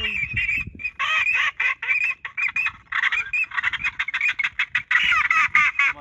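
Ducks calling in a dense, rapid chorus of overlapping whistles and quacks, thickening about a second in.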